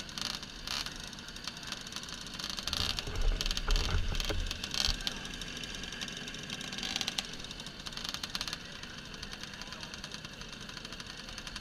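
Several small moped engines idling together with a fast, even puttering. A louder low rumble sits between about three and five seconds in.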